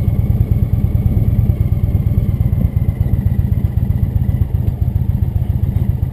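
Indian V-twin cruiser motorcycle running at a steady cruising speed, heard from the rider's seat: a steady low throb that neither rises nor falls in pitch.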